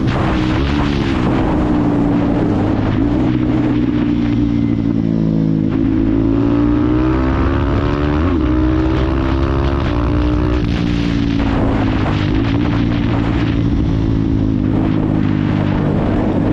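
KTM Duke 390's single-cylinder engine running hard at high road speed on a mostly steady throttle, its pitch wavering slightly with one brief dip about halfway through. Wind rushes over the microphone, stronger at the start and again in the last few seconds.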